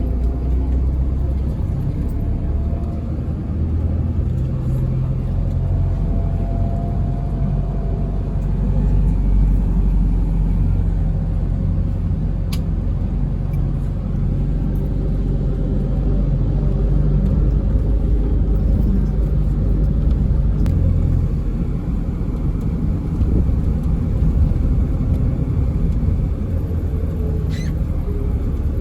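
Four-car passenger train running, a steady low rumble with faint tones that drift slightly in pitch and a single sharp click about halfway through.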